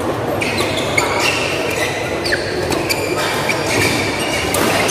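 Badminton doubles rally: sharp racket strikes on the shuttlecock mixed with short, high squeaks of shoes on the court, over steady background murmur.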